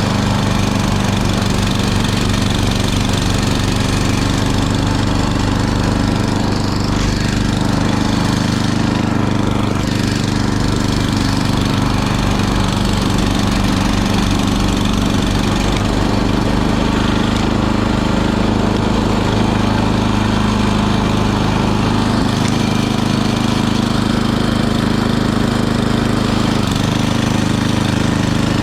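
Small gasoline engine of a snowblower running steadily at a constant speed.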